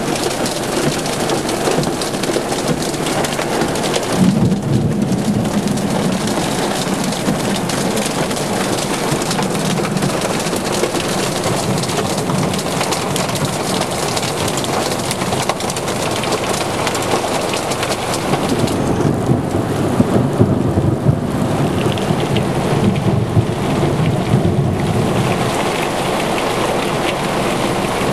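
Heavy thunderstorm rain pouring down steadily, with rolling thunder rumbling about four seconds in and again for several seconds in the second half.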